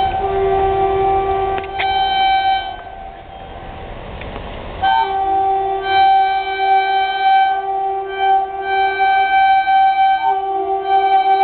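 Horn of a WAP-4 electric locomotive sounding in long, steady blasts. About three seconds in it stops for roughly two seconds, and the low rumble of the train running in is heard before the horn sounds again.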